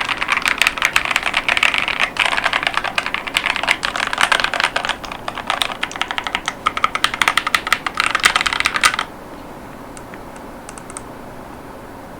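Fast typing on a KiiBoom Phantom 81 mechanical keyboard with Crystal linear 55gf switches and clear polycarbonate ASA-profile keycaps: a dense run of key clacks that stops abruptly about three-quarters of the way through, followed by a few faint clicks.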